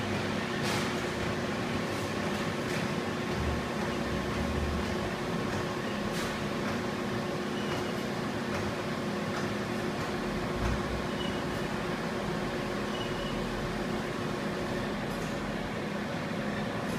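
Steady machinery hum with several constant tones, from a punching machine's surroundings while its control panel is set up. A few faint clicks and three short high beeps sound over it in the second half.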